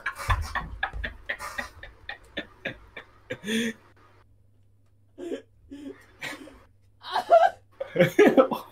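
A person's voice: short, quick bursts of laughter for the first few seconds, then a pause and a few brief, indistinct spoken sounds.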